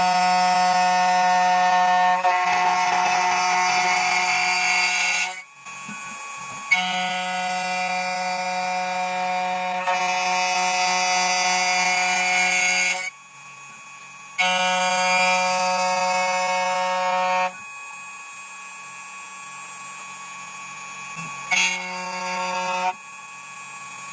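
CNC key cutting machine's spindle motor whining steadily as its cutter mills a copper blank, starting and stopping in separate cutting passes: a long run, a short gap, another long run, then a shorter run and a brief burst near the end.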